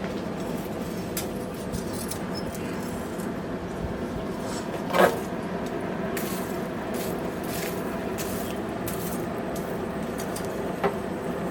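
Light metal clinks over a steady machine hum, with one loud ringing clang of metal on metal about five seconds in and a smaller clink near the end.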